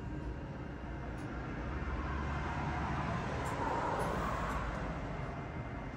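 A road vehicle passing by: a broad rushing swell that builds, peaks about two-thirds of the way in and fades, over a steady low hum.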